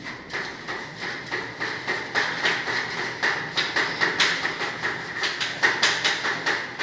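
Paintbrush scrubbing paint onto a metal air-cooler grille: quick back-and-forth strokes, about four a second, the bristles scratching and clattering over the slats, a little louder near the end.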